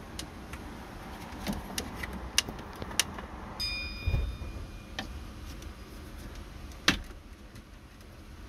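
Scattered small plastic clicks and knocks as wiring retainer clips are worked loose with a clip puller under a pickup's gear shifter, with one sharp click about seven seconds in. A brief high tone sounds about three and a half seconds in.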